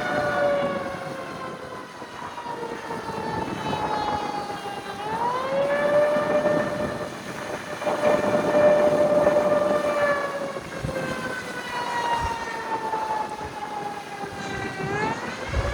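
Mechanical outdoor warning sirens, a Federal Signal 2T22 and 2001-SRNB, sounding the attack signal: the pitch slides slowly down for several seconds, then winds up quickly, about five seconds in and again near the end. Heard from a moving car, with low road noise underneath.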